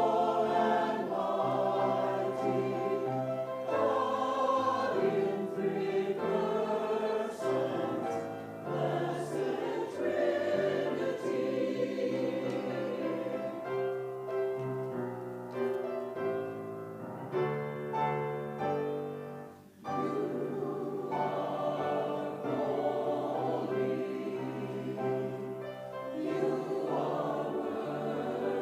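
A choir singing sustained chords in several voices, with a short break between phrases about twenty seconds in.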